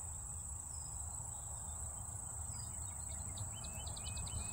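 Steady high-pitched drone of insects over a low rumble, with a quick run of faint high bird chirps near the end.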